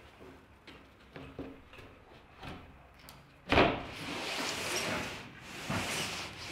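Wooden crosscut sled sliding across a table saw top with the saw switched off. There are a few light clicks, then a sharp knock about three and a half seconds in, followed by about three seconds of rushing, scraping wood-on-metal sliding noise.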